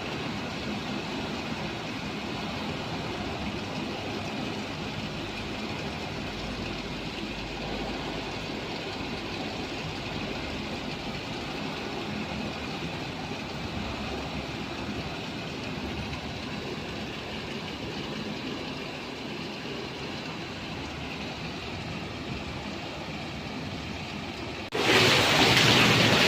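Heavy rain and strong storm wind making a steady rushing roar, which turns suddenly much louder near the end.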